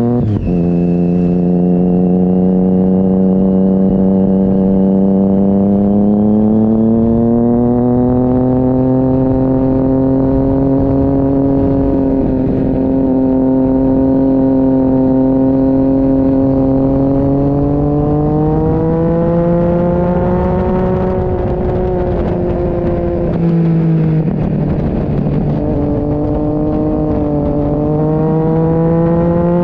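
Sport motorcycle engine under hard load, heard from a camera mounted on the bike: it revs up and drops sharply in pitch at a gear change right at the start, then holds a high, slowly climbing note. About two-thirds of the way through the pitch falls and wavers as the throttle eases, then climbs again near the end, with wind rush throughout.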